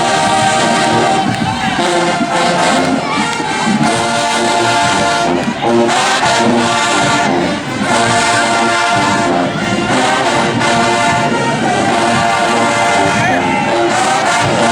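Marching band playing, its brass section loudest, with crowd noise underneath.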